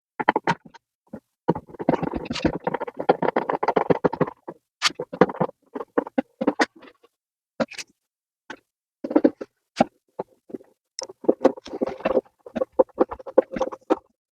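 Hand work on a wooden table: irregular clicks, knocks and scraping of a screwdriver driving wood screws and wooden parts being handled, with a longer stretch of scraping about two seconds in.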